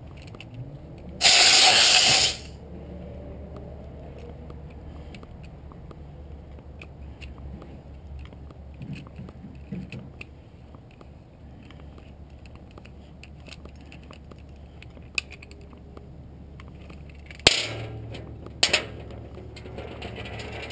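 CO2 gas venting from a PTXtreme paintball pistol: a loud hiss of about a second shortly after the start. Small clicks and handling of the pistol follow, then near the end a sharp burst of hiss and a shorter one as the spent 12-gram CO2 cartridge is let down and taken out.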